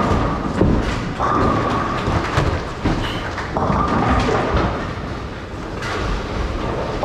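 Bowling alley noise: a low rumble of balls rolling down the lanes, with many scattered knocks and clatters of balls and pins.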